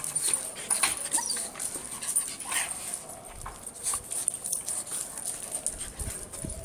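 A small white dog whimpering and yipping in short, separate bursts while it is being scratched: eager, excited begging for attention. A few dull bumps come near the end.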